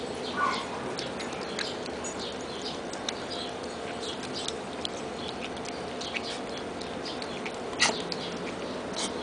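Four-week-old Siberian husky puppies eating soft mashed food from a pan: a run of irregular wet smacking and chewing clicks, with a sharper knock about eight seconds in.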